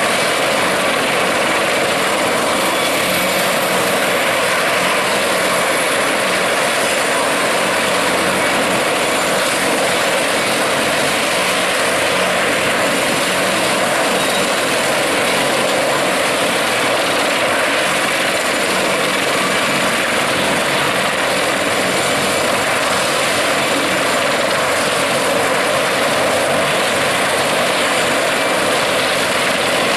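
Helicopter turbine engines and rotor running steadily: a loud, even noise that does not change.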